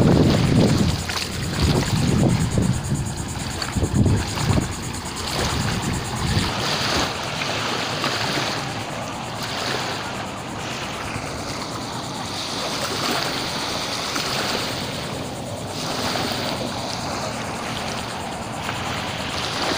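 Small waves washing on a sandy, shelly beach in a steady hiss that swells and ebbs. Wind buffets the microphone with low rumbles during the first few seconds.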